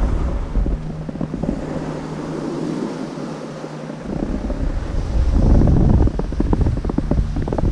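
Wind buffeting the microphone of a moving rider, mixed with the hiss and scrape of a snowboard sliding on snow; the rush eases about two seconds in and grows rougher and louder again past the middle.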